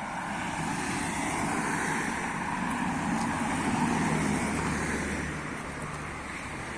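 Road traffic: a motor vehicle's tyre and engine noise swelling to a peak about four seconds in, then easing off.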